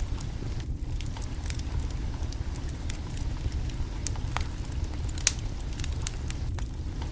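Wood fire crackling: scattered sharp pops over a steady low rumble, with one louder pop about five seconds in.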